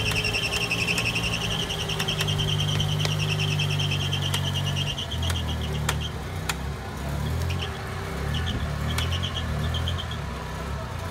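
UAZ-469 engine running while the vehicle sits stuck in deep mud; the note is steady at first and turns uneven, labouring and wavering, about halfway through. A high, rapidly pulsing whine sounds over it for about the first five seconds and returns in short bits later, with a few sharp clicks.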